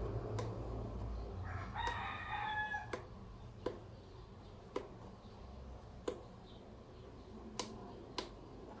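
Sharp clicks, about one a second, as a BSA 4-16x44 rifle scope is handled. A drawn-out crowing call from a bird comes about two seconds in, and a low rumble fades away over the first second or so.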